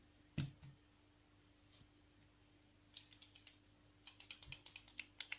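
Near silence broken by small handling noises: a knock about half a second in, then two runs of quick light clicks, the second faster at about ten a second, near the end.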